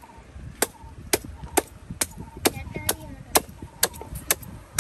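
Curved cleaver-like knife chopping through a large fish into steaks on a wooden stump chopping block: about ten sharp chops, evenly paced at roughly two a second.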